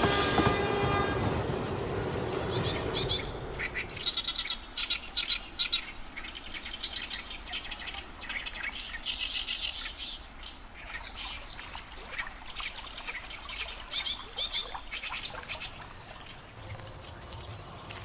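Small birds chirping in quick bursts of rapid, high notes, over a faint background hiss. A low, steady pitched tone with a rumble fades out over the first few seconds.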